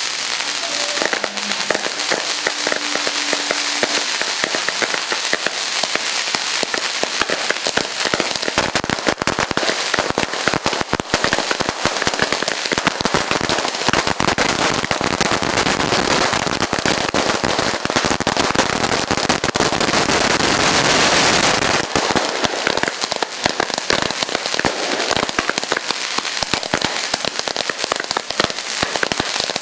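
A long string of firecrackers going off as one continuous rapid crackle of bangs, at its densest and loudest about two-thirds of the way through.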